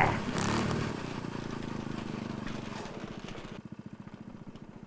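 A rapid, even buzzing rattle that slowly fades away over several seconds.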